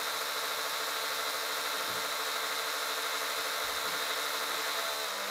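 Electric drill running at a steady speed, spinning a length of wire held in pliers to twist it into an eye.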